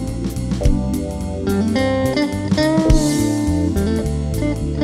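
Live pop-rock band playing an instrumental passage: a Stratocaster-style electric guitar plays a lead line with bent notes over drums and bass guitar.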